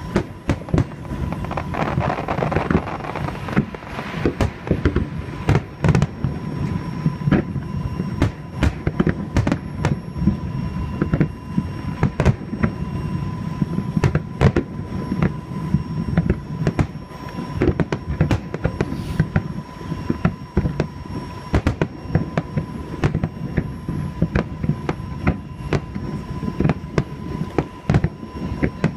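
Aerial fireworks display: a dense, continuous barrage of booming shell bursts and sharp cracks, several a second, over a steady low rumble.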